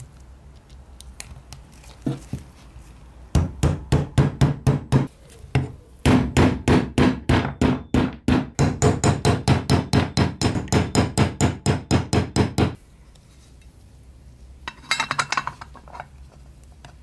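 Restored hand drill's gear train being cranked: quick, evenly spaced metallic clicks, about five a second, in a short run and then a longer one, with a brief flurry near the end.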